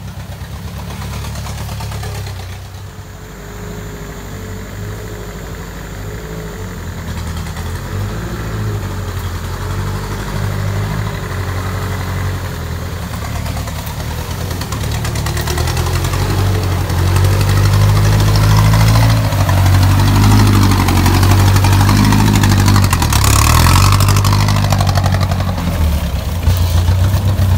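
Mitsubishi PS 120 truck's diesel engine running under load, working harder and getting louder through the second half. A rushing noise joins it for a few seconds about two-thirds of the way in.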